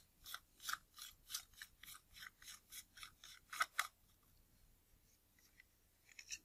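Short scratchy rasping strokes, about three or four a second for some four seconds, the last two loudest: the threaded front ring of a Nikkor 50mm f/1.8 lens being twisted loose by hand, grip and threads rubbing. Then only a few faint ticks.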